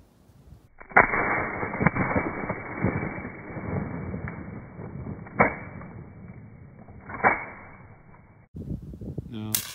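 A .22 rifle shot and its hit on a soda can, heard slowed down, deep and muffled. It starts with a sudden loud crack about a second in, has a few more dull cracks over the next several seconds, and cuts off abruptly. Near the end comes one sharp, full-speed rifle shot.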